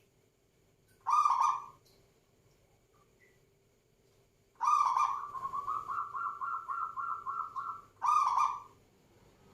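Zebra dove (perkutut) cooing in a humming (berdengung) voice: a single coo about a second in, then a longer song about four and a half seconds in that runs into a train of about four quick notes a second for some three seconds, and one more coo near the end.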